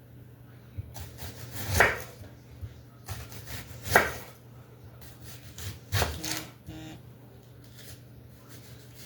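A knife slicing a purple onion into rings on a wooden cutting board: three slow strokes about two seconds apart, each swelling to a scrape, with lighter scraping between.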